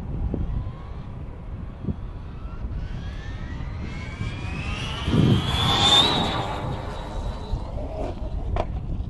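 Race car running down a drag strip, its whine rising steadily in pitch and growing louder to a peak about five to six seconds in, then fading, over a steady low rumble.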